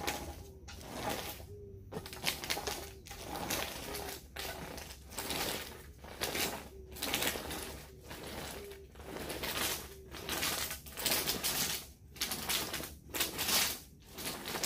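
A spiked dibbling roller rolled back and forth over soil-filled plastic seedling trays, pressing planting holes. Each stroke gives a rhythmic rattling scrape about once a second, and a short squeak recurs every half second or so.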